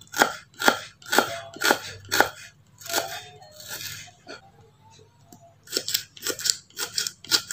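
Kitchen knife slicing shallots on a wooden cutting board: crisp cuts, each stroke knocking on the board. The cuts come about two a second at first, then slow, pause, and speed up to about four a second near the end.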